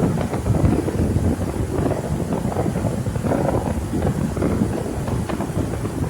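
Homemade earthquake sound effect: a continuous low rumble with many small rattles and crackles mixed through it.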